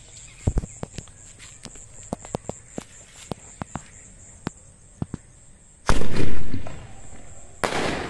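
Anil 'five-shot' mini sky-shot firework going off. About six seconds in there is a loud shot that trails off over most of a second, and a second loud burst comes near the end as a shot goes off in the air. Scattered small pops and clicks come before them.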